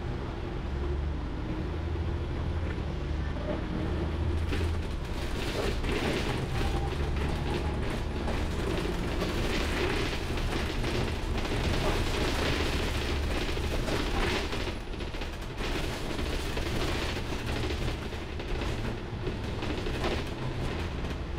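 Inside a moving double-decker bus: a steady low engine rumble, with the body and fittings creaking and rattling throughout.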